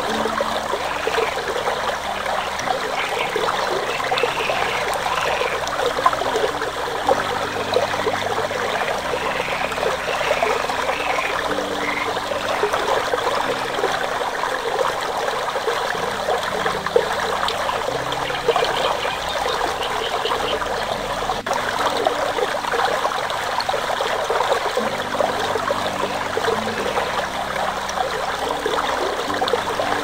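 Creek water running and splashing steadily over rocks. Soft, low background music sits underneath, its sustained notes changing every second or two.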